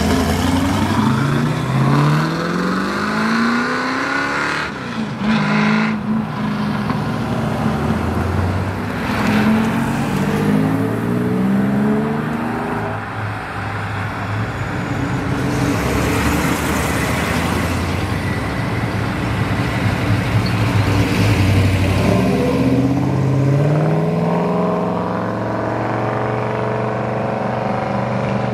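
Classic American cars accelerating away one after another. Each engine note climbs through the revs, three times in all, near the start, around the middle and near the end, with steadier engine running in between.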